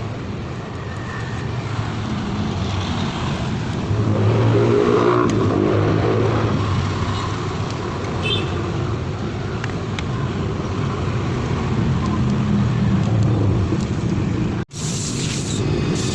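A motorcycle engine running steadily, a little louder from about four seconds in, then cut off abruptly near the end.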